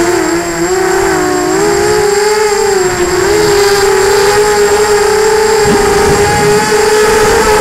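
Onboard recording of an FPV drone's electric motors and propellers: a loud whine whose pitch wavers with throttle, dipping about a second in and then holding steady, over the rumble of wind on the camera's microphone.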